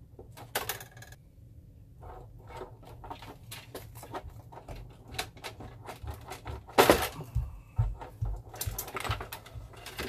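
Clicks, knocks and rattles of a plastic steam tank being worked loose and lifted out of a Honeywell whole-home steam humidifier's sheet-metal cabinet. A sharp knock comes about seven seconds in.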